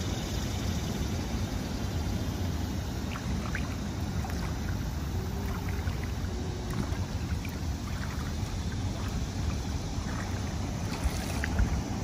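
Shallow river water splashing and trickling around a wading child's legs and a small toy RC boat, with scattered little drips over a steady low rumble.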